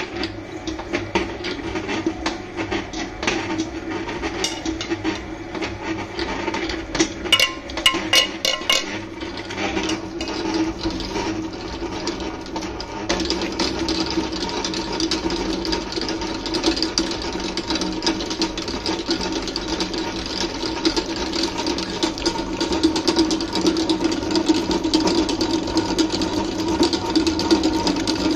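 Commercial stand mixer running, its dough hook kneading dough in a stainless steel bowl: a steady motor hum with a fast rattle. A short run of sharp clicks comes about eight seconds in, and the sound turns brighter and harsher from about thirteen seconds in.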